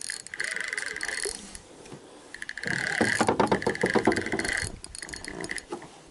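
A fishing reel winding in short bursts as a hooked fish is reeled in to be landed. In the middle, a couple of seconds of dense rattling clicks.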